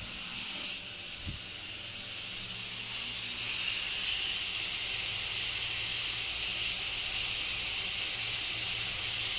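Potato and pointed gourd pieces sizzling as they fry lightly in oil in a non-stick pan: a steady hiss that grows louder about three seconds in, over a faint low hum.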